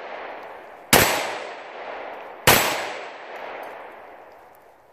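Two gunshots about a second and a half apart, each fading away slowly after the crack.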